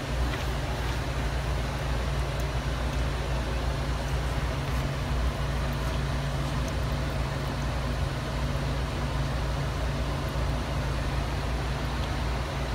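Catit Flower Fountain running: its small electric pump humming steadily under water bubbling up and splashing out of the flower top at full flow.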